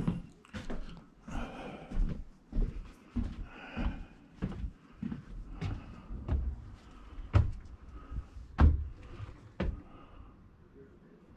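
Irregular knocks and thumps, with two sharper, louder knocks about seven and a half and eight and a half seconds in.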